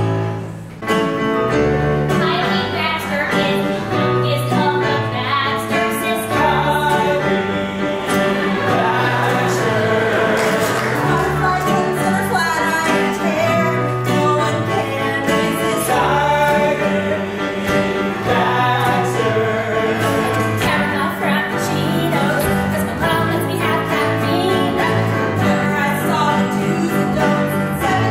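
A musical-theatre song: several voices singing together over keyboard accompaniment with a steady bass line.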